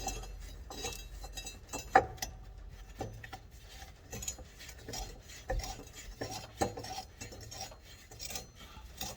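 Irregular light metallic clinks and scrapes as a mower cutting blade and its mounting hardware are handled and seated in the spindle's notches, with one sharper clink about two seconds in.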